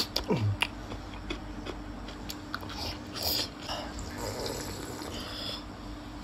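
Close-miked mukbang eating sounds: a sharp bite right at the start, scattered small chewing clicks, then sipping and swallowing from a glass in the second half, over a faint steady hum.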